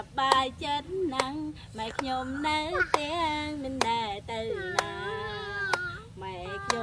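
A high voice singing in long, gliding notes, with a sharp click about once a second, like a beat.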